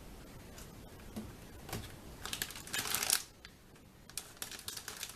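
Rustling and light clicking of grocery items and packaging being handled, with a denser rustle lasting about a second near the middle.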